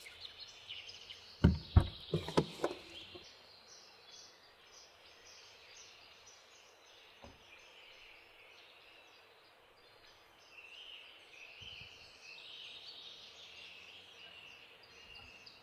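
Faint outdoor ambience of birds chirping steadily. A few knocks or thumps come about a second and a half to two and a half seconds in, and one more, softer, around seven seconds.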